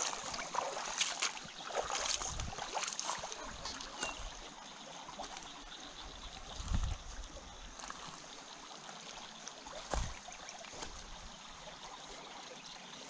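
Shallow rocky river trickling steadily over stones. A few light clicks come in the first three seconds, and there are two low thumps, about seven and ten seconds in.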